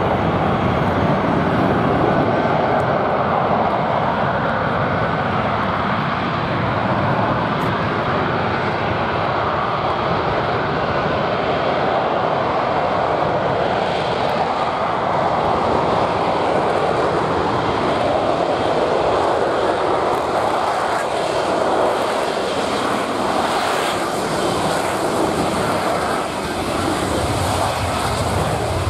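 F-35B's F135 jet engine and lift fan running at hover power, a loud steady roar that holds without a break while the jet hangs and lets down slowly in a vertical landing.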